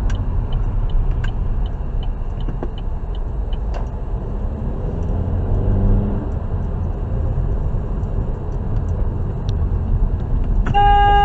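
Steady low rumble of a car driving. Faint regular ticking sounds in the first few seconds. A car horn starts near the end and is held.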